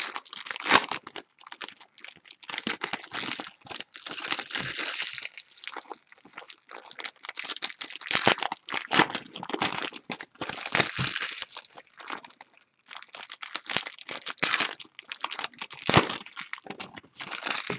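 Foil wrappers of football trading card packs being torn open and crinkled by hand: irregular bouts of crackling and rustling with short pauses between them.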